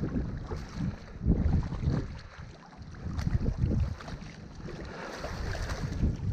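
Wind buffeting the microphone in irregular gusts, over a steady rushing hiss.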